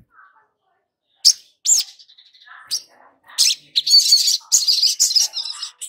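Olive-backed sunbird (sogon) calling: a few short, sharp, high chirps, then from about three and a half seconds in a fast, dense, high twittering song.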